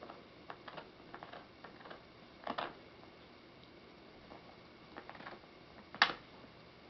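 Miniature dachshund gnawing a chew held between her paws: scattered clicks and scrapes of teeth on the chew, with a cluster about two and a half seconds in and one sharper click about six seconds in.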